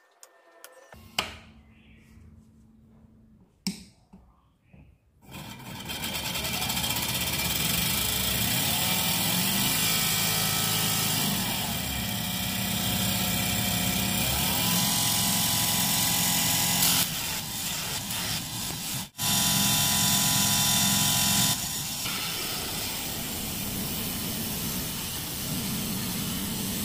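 Small electric motor and circular blade of a homemade mini table saw: a couple of clicks, then it spins up about five seconds in and runs with a steady whine. Its pitch dips and comes back up as the speed knob is turned, and it cuts out very briefly past the middle before running on.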